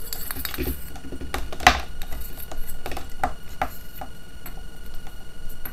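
Metal parts of a brass water-meter body and a metal cup-shaped base clinking and knocking together as they are handled and fitted by hand, with the cable rubbing against them: a handful of separate sharp taps, the loudest about a second and a half in.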